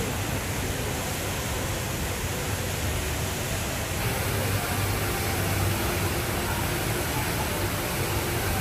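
Steady rushing of the Rain Vortex, a very tall indoor waterfall, pouring from the glass roof's opening down into its basin.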